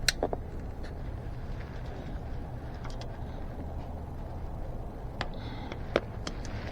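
Metal bicycle spokes clicking and tapping as they are handled and threaded into an e-bike wheel's hub and rim. There is a sharp click at the start and another about six seconds in, with a few lighter taps between, over a steady low hum.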